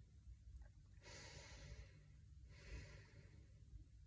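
A woman breathing slowly and faintly while holding a facial-yoga pose: two soft breaths, one about a second in and another near the three-second mark.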